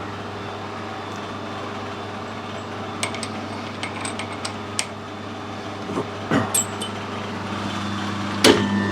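Steady low machine-shop hum with scattered light clicks and knocks as tools and the workpiece are handled, and one sharper knock near the end.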